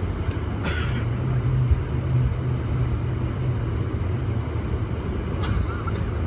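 Cabin noise inside a Boeing 747-400 taxiing after landing: a steady low rumble with a low hum that drops away about two-thirds of the way through. Two short rattles, one near the start and one near the end.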